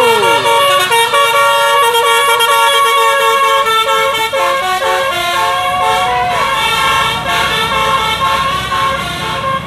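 Telolet basuri musical bus horn playing a melody: several high tones sounding together and changing pitch in steps, with one swooping note a little past the middle.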